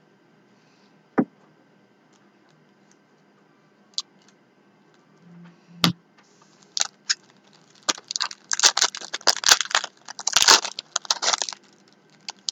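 A few separate sharp clicks and taps, then from about six seconds in several seconds of dense crinkling and rustling: trading-card pack wrappers and cards being handled.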